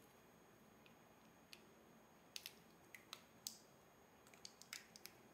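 Near silence with faint, scattered small clicks and crinkles from fingers handling a plastic shrink wrap sleeve on a cylindrical lithium-ion battery, most of them in the second half.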